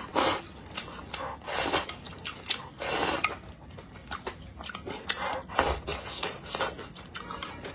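Slurping noodles and broth: several short slurps, the loudest about three seconds in. Between them, wooden chopsticks click and scrape against an enamel bowl.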